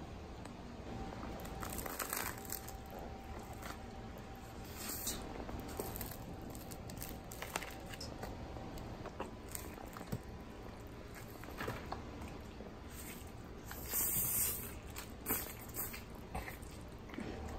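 Quiet, scattered crunches, clicks and rustles of food being handled and eaten, with a louder cluster about three-quarters of the way through.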